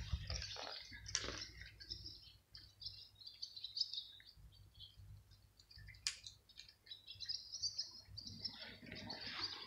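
Small songbirds chirping repeatedly in quick, high notes. There are short bursts of noise near the start and near the end, and one sharp click about six seconds in.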